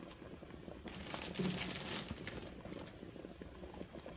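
Hot pot broth simmering faintly in a steel pot, with a brief burst of crinkling about a second in that lasts about a second.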